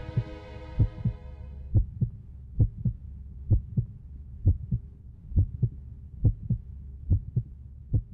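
Heartbeat sound effect: low double thumps, one pair about every second, steady throughout. A sustained orchestral chord fades out under it about two seconds in.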